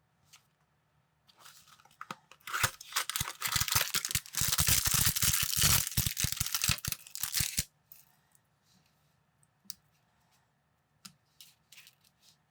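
A thin plastic bag being torn open and crinkled, a few seconds of dense rustling and ripping that stops suddenly, followed by a few light clicks of small plastic pieces.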